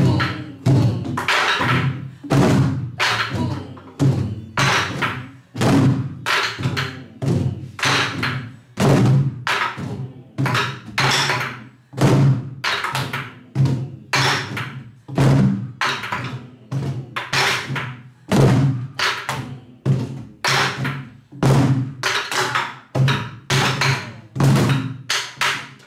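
Several Korean buk barrel drums played together in a repeating rhythm: sharp clacks of sticks on the wooden shells mixed with deep thuds of palms on the drumheads.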